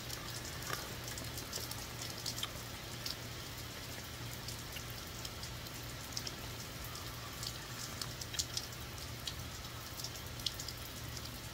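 Steady heavy rain falling, with scattered sharp drops and drips landing close by.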